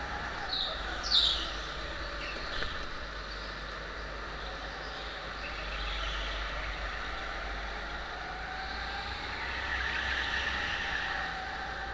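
Rental go-kart running at racing speed, its drive note rising and falling through the corners, with short high tyre squeals about a second in.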